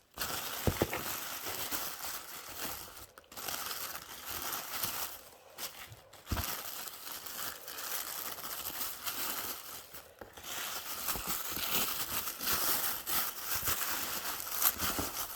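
Wrapping and packing material crinkling and rustling as it is handled, going on and off with brief pauses.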